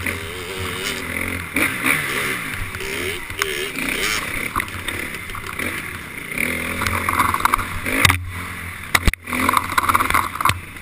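KTM 350 XC-F four-stroke single-cylinder dirt bike engine revving up and down hard through the gears on tight trail, heard from the rider's own camera. The engine briefly drops off throttle about eight and nine seconds in.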